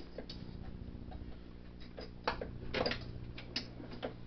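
Irregular small metallic clicks and clinks of pliers working the shifter cable fittings on a John Deere JX85 walk-behind mower, with a louder cluster of clicks a little under three seconds in, over a steady low hum.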